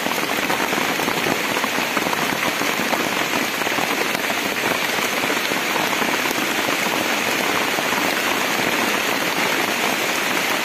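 Heavy rain falling steadily, a dense, even spread of close drop impacts.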